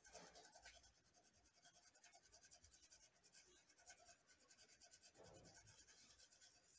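Faint scratching of a pencil lightly shading on paper, many quick back-and-forth strokes.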